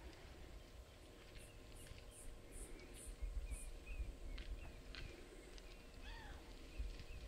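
Faint outdoor bush ambience: scattered bird chirps and a single arched call about six seconds in, a run of six short high-pitched pulses about a second and a half in, and a low rumble underneath that grows stronger about halfway through.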